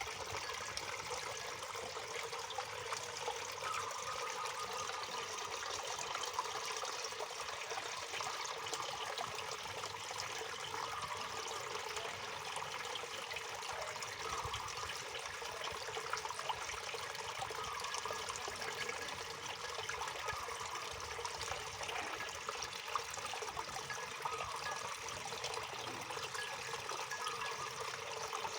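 Waterfall: water falling and rushing steadily.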